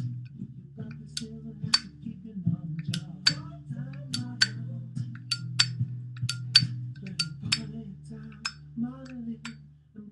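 Zippo lighter lid repeatedly flipped open with the thumb and snapped shut: sharp metallic clinks with a brief ring, often in pairs about half a second apart, over faint background music.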